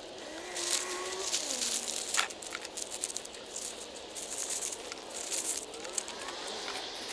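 Dry dead aeonium leaves crackling and crinkling as a gloved hand pulls them out from under the plant and drops them into a box, in irregular handfuls with sharp little snaps.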